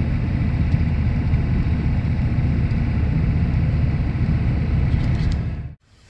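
Steady low rumble of a 1987 truck's engine and tyres on the road, heard from inside the cab while driving, cutting off suddenly near the end.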